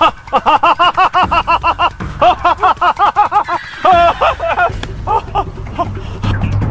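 A person laughing loudly in long runs of quick 'ha-ha' bursts, about six a second, with short breaks between runs, dying away after about five seconds. Background music comes in near the end.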